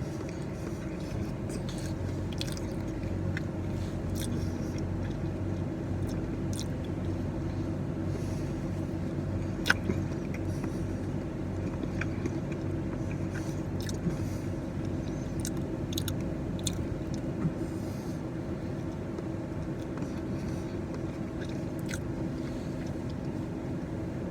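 A person chewing and biting into a pumpkin cream cheese muffin close to the microphone, with scattered small clicks of the mouth, the sharpest about ten seconds in, over a steady low background hum.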